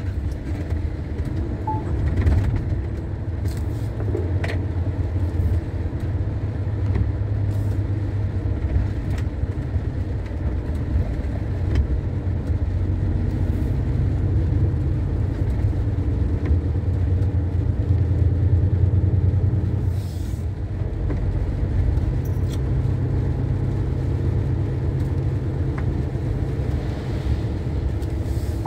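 Truck engine droning steadily, heard from inside the cab while driving, dipping briefly about twenty seconds in.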